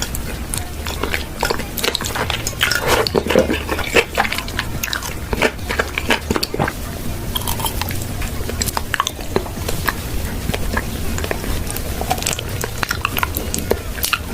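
Close-miked eating: biting and chewing with crisp crunching and many quick, sharp clicks and crackles, over a steady low hum.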